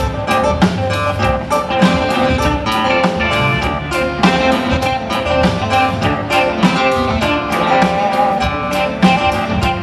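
Live rock band playing through a PA, with electric guitars over a steady drum beat.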